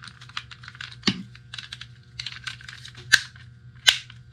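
Small plastic clicks and rattles of Fat Shark goggle housing parts being pressed and snapped back together, with louder sharp snaps about a second in, about three seconds in and near the end.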